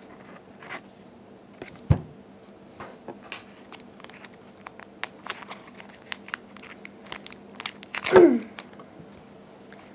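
Pokémon booster pack foil wrappers and cards being handled: light crinkling and scattered clicks, with a sharp knock about two seconds in and a brief falling-pitch sound about eight seconds in, the loudest moment.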